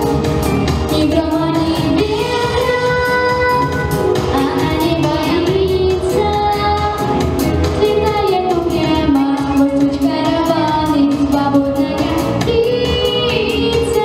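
A girl singing a pop ballad into a handheld microphone, amplified over an accompaniment with a steady beat; she holds long notes that glide between pitches.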